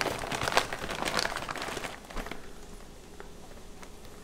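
Packaging being handled and opened: light rustling and crinkling with scattered small crackles and taps, busier at first and thinning out over the second half.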